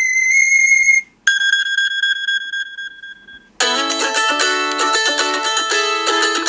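Apple iPhone 8 Plus ringtones and alert tones played one after another: a held electronic beep that stops about a second in, a single chime that fades away, then a busier melodic ringtone of quickly changing notes starting about three and a half seconds in.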